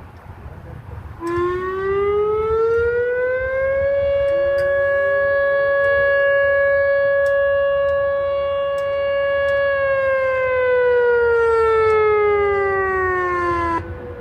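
Selfridge Air National Guard Base outdoor warning siren sounding its short alert signal in a weekly test. The tone rises for about three seconds, holds steady for about six, then falls and cuts off suddenly near the end, with a fainter second siren trailing a few seconds behind.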